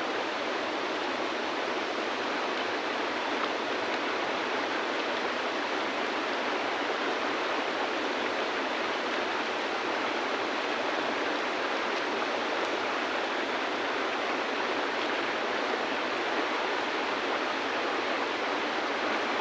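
A river flowing over stones: a steady, even rush of water.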